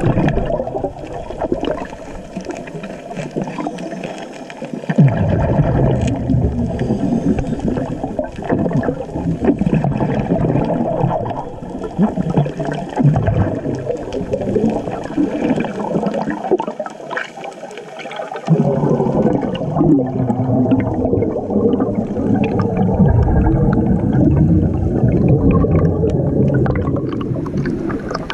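Muffled underwater gurgling and bubbling of a diver's air bubbles, heard through a camera's waterproof housing. A deep rumble comes in about five seconds in and drops out briefly about two-thirds of the way through.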